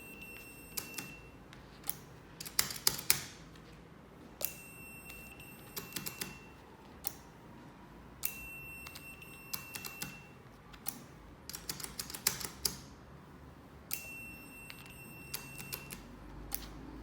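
Video intercom door station beeping: four long, steady, high beeps about every four to five seconds, with bursts of sharp clicks and taps between them.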